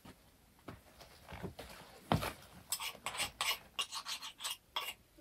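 Rustling and scraping of green onions being handled and trimmed by hand, a quick irregular run of short strokes starting about two seconds in, with a single knock at its start.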